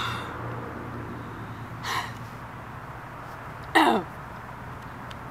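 A woman clearing her throat and coughing three times, about two seconds apart, the last and loudest ending in a falling voiced groan. It is a reaction to the burn of pepper spray on the sandwich she is eating.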